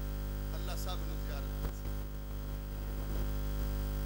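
Loud, steady electrical mains hum in the microphone's sound system, with a man's voice speaking briefly about a second in. A dull low bump and rumble come through the hum about two seconds in.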